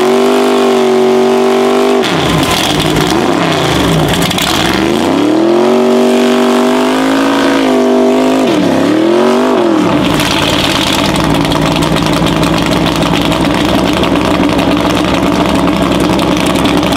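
Mega truck's engine revving hard in long pulls, with the pitch falling and climbing back twice, while its big mud tyres spin and throw mud. After about ten seconds it drops to a steady, lower running as the truck sits bogged in the mud.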